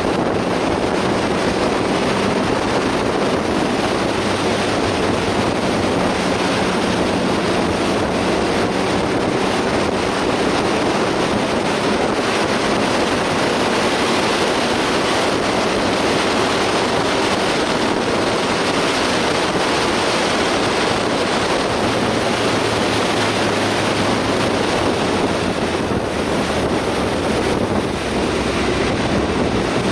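Steady wind rush over the microphone from riding at road speed. Underneath it is the low, steady hum of a Triumph Rocket 3 Roadster's three-cylinder engine at cruise.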